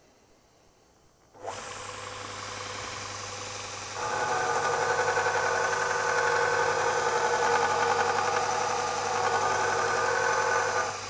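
Robert Sorby ProEdge belt linisher switched on about a second and a half in, its motor running with a steady hum. From about four seconds in, a carving axe's steel bevel is ground flat against the moving belt in a jig, adding a louder steady grinding sound that stops just before the end while the motor runs on.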